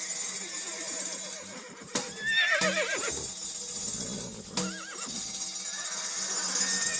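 A horse whinnies about two seconds in, with a shorter whinny near five seconds. Sharp tambourine strikes land around them, over a steady low musical drone.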